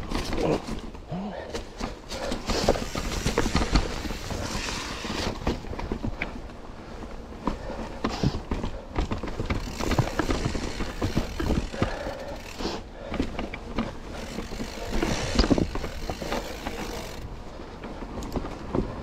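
Mountain bike riding over rock: the tyres knock and crunch over stones while the bike rattles and clatters, with irregular sharp knocks all through.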